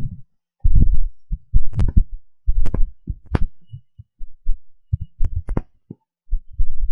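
Wind buffeting the microphone in gusts: loud, low rumbling blasts that come and go with short gaps between them, with a few sharp crackles.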